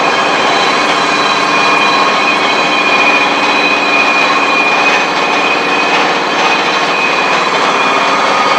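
Steel being cut hot, throwing a shower of sparks: a loud, steady hissing roar with faint steady high whines through it.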